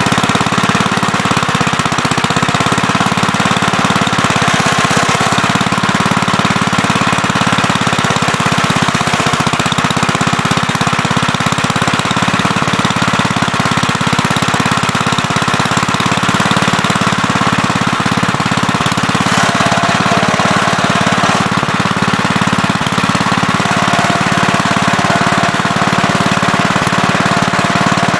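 Gravely Terramite backhoe's engine running steadily at working speed while digging, loud and unbroken. A steady higher whine joins about two-thirds of the way in.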